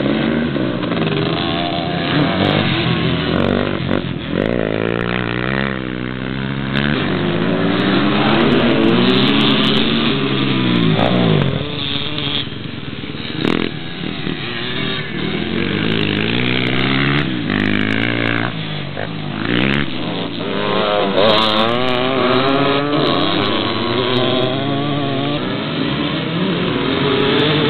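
Several dirt bikes running on a dirt track, engines revving up and down over and over as they accelerate, shift and ride past. The engine notes overlap and rise and fall in pitch continuously.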